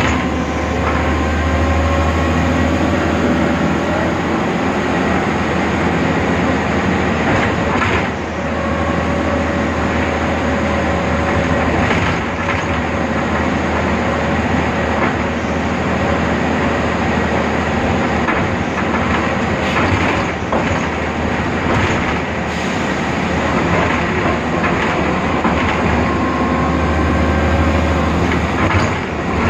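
BredaMenarini Avancity Plus city bus under way: a steady low drone from its Deutz diesel engine, with a faint whine that slowly rises and falls and a few knocks and rattles along the way.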